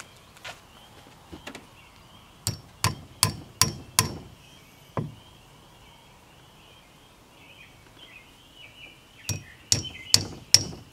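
A hammer driving nails into the top of a birch log: a run of sharp blows about a third of a second apart a couple of seconds in, a pause, then another quick run near the end.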